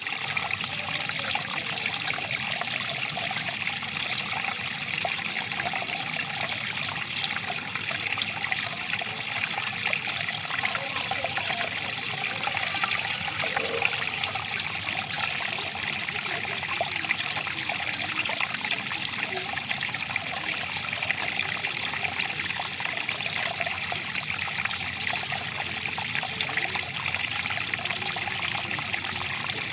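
Water flowing and trickling in a steady, even rush, with small splashing and bubbling detail over it.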